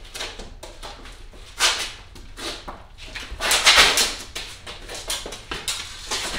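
Fencing footwork on a concrete floor: quick steps and shoe scuffs, with a longer, louder scraping rush about three and a half seconds in as one fencer drives forward in an attack.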